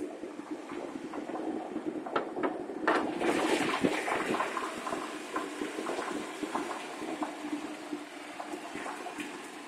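Chrysler 318 (5.2 L) V8 idling roughly with a bad misfire, with a cluster of knocks and clatter a few seconds in.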